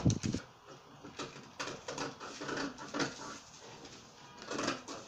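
Shears cutting through brown pattern paper: a thump as it starts, then irregular crisp snips and paper rustling.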